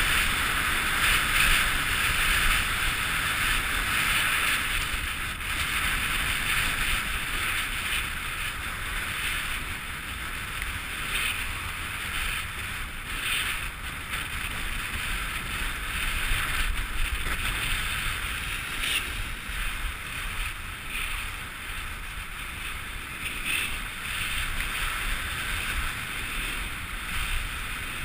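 Wind rushing over a GoPro HD Hero's microphone, with skis hissing and scraping on packed snow, during a fast downhill ski run. A steady rush with no pitched tone that eases a little as the skier slows from about 70 to 45 km/h.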